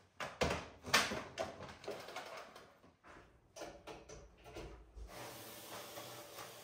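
Knocks and clatter as a bagless canister vacuum cleaner is handled and its plug pushed into a wall socket. About five seconds in, the vacuum cleaner starts running with a steady, even hiss.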